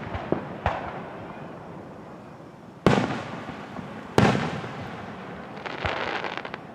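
Aerial fireworks bursting at a display. A few small pops come first, then two loud booms about a second and a half apart, each rolling away in a long echo, and a fast crackling burst near the end.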